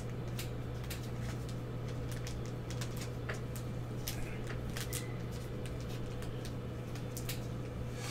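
Light, irregular clicks and rustles of trading cards and plastic card holders being handled on a tabletop, over a steady low hum.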